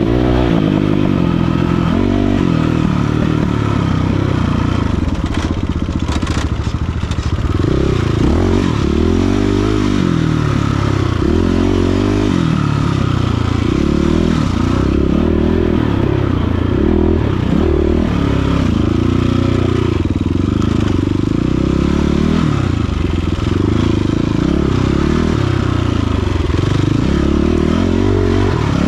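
Dirt bike engine running hard, its pitch repeatedly rising and falling as the throttle is opened and closed and the gears change.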